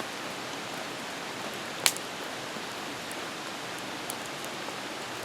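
Steady rain falling, an even hiss, with one sharp click about two seconds in.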